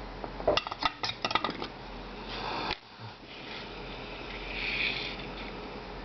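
A quick run of small metal clicks and clinks, like tools or parts being handled on a workbench, then a short hiss that stops abruptly about halfway through, and a fainter hiss near the end.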